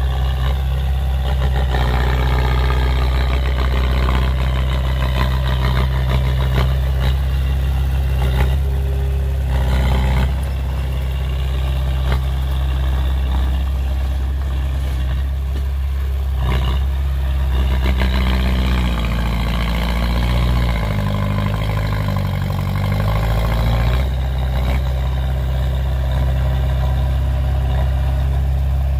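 Heavy diesel earthmoving machinery (dump trucks and a bulldozer) running steadily, with clattering knocks. The engine speed shifts up and down for a few seconds about two-thirds of the way through.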